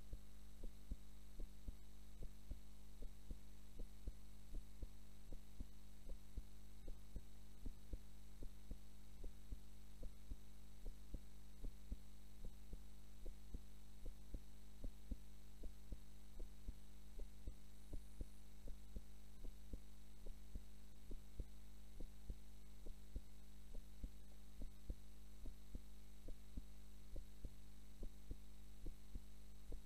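A woman's heartbeat beating slowly and regularly, each beat a soft double thump, over a steady electrical hum. This is her resting heart rate while she is asleep.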